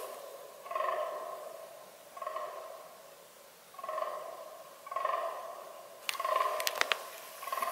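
Fallow buck groaning in the rut: a series of six short, belching calls about one every second and a half. A few sharp clicks come about six seconds in.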